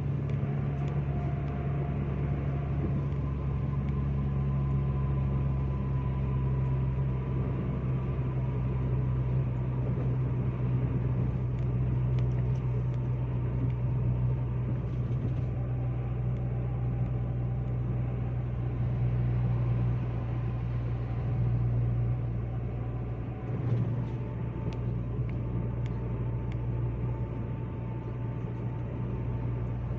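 Car driving along a motorway, heard from inside: a steady low drone of engine and tyre noise.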